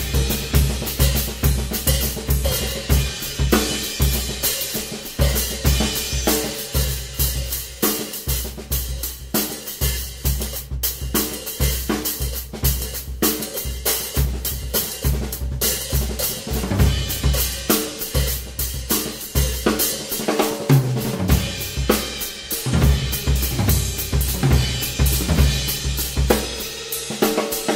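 Ludwig drum kit played solo: fast, continuous stick strokes on snare, toms and cymbals over repeated bass drum beats.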